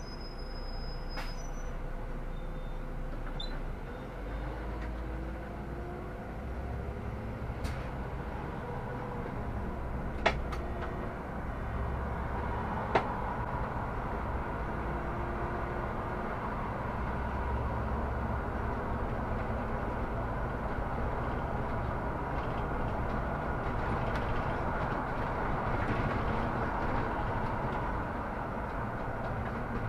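Solaris Urbino 18 articulated city bus under way: steady engine and road noise that grows a little louder through the stretch. Two sharp clicks about ten and thirteen seconds in.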